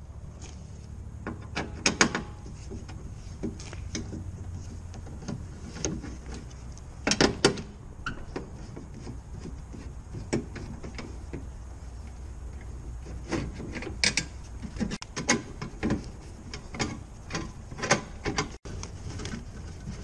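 Irregular metallic clicks and knocks of a hand tool with a 10 mm socket working the door handle's fixing nuts inside a car door, some in quick clusters, over a steady low hum.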